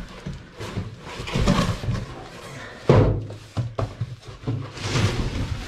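Cardboard packaging of a tool chest being handled and folded back, scraping and rustling, with a sharp thump about three seconds in.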